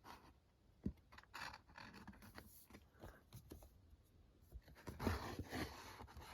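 Paperback manga volumes being handled: faint scraping and rustling of books and paper, with a light knock about a second in and a louder rustle near the end.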